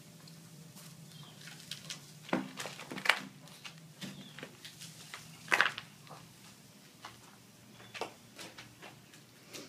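A pug carrying a large short-rib bone in its mouth across a concrete floor, the bone scraping and knocking against the concrete at irregular moments, loudest about three and five and a half seconds in. A faint steady low hum runs underneath.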